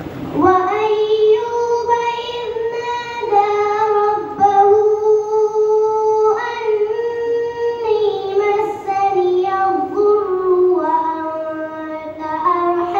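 A boy's solo voice chanting an Islamic recitation into a microphone. It starts about half a second in and holds long melodic notes that step up and down in pitch, with short breaks between phrases.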